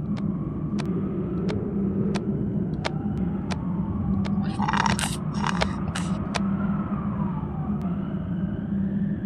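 City ambience: a steady low traffic rumble, with a distant siren wailing up and down in the second half. Sharp clicks are scattered through it, and a few short hissing bursts come around the middle.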